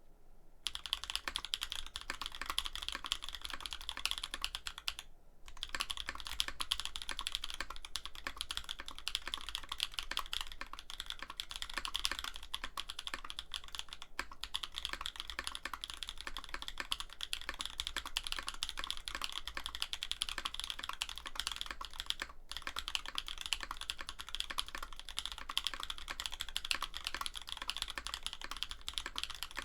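Continuous typing on a Bauer 2 mechanical keyboard with an aluminum plate and INVYR Holy Panda tactile switches: a dense run of keystrokes. It starts about half a second in, pauses briefly around five seconds, then runs on with two short breaks.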